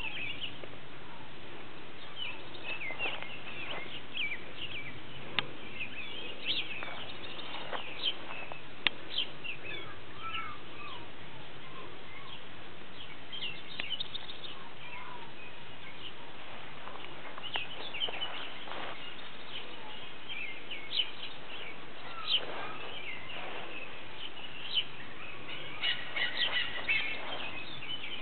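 Small birds chirping in short, scattered calls over a steady background hiss, with a few sharp clicks.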